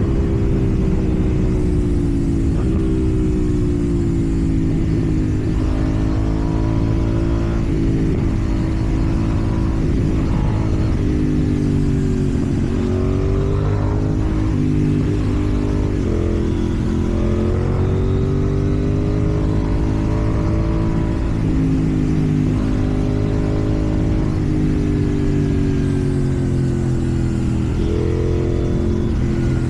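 KTM Duke 790's parallel-twin engine running through a slip-on exhaust while riding, its pitch rising and falling again and again with the throttle.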